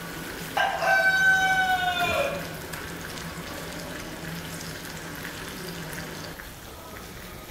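A rooster crowing once, starting about half a second in: one call of under two seconds that drops in pitch at the end, over a steady hiss.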